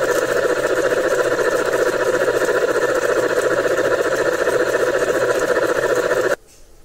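LGB G-scale Shay model locomotive running in place on rollers: a steady, fast mechanical clatter from its motor, geared drive and moving cylinders. It stops abruptly near the end.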